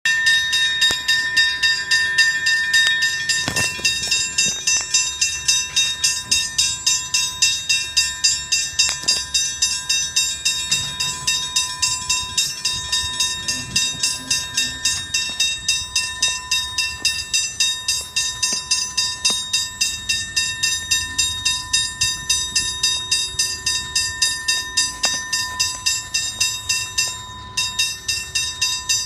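Railway level-crossing warning bell ringing steadily at about three strikes a second, with the rumble of an Alstom Comeng electric suburban train arriving underneath.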